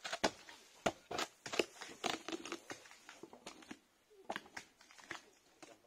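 Cork oak bark cracking and tearing as it is pried off the trunk with cork axes: a rapid run of sharp cracks, snaps and taps that thins out about four seconds in.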